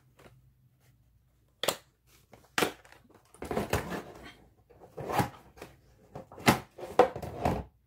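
Irregular rustling, crinkling and knocking from handling a hard plastic torque-wrench case and plastic packaging while a torque wrench is taken out. The sounds start about a second and a half in and come as several short bursts and scrapes.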